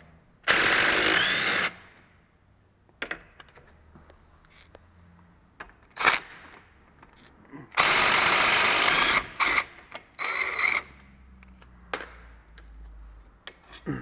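DeWalt cordless impact wrench hammering brake caliper bolts loose: two loud bursts of about a second and a half each, about half a second in and about eight seconds in, then a shorter run near eleven seconds. Light knocks of the socket and tool on the brake parts come in between.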